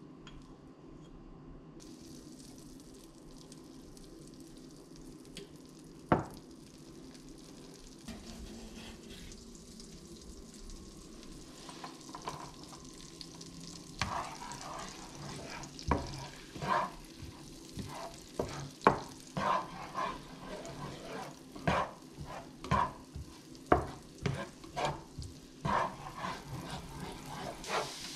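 Butter sizzling in a frying pan with minced garlic frying in it, the hiss building over the first half. One sharp knock about a quarter of the way in. From about halfway a spatula stirs and scrapes the pan in quick, repeated strokes.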